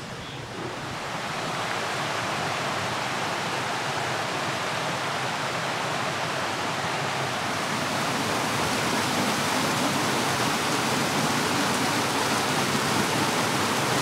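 Mountain stream water rushing steadily over rocks, swelling in over the first couple of seconds and then holding.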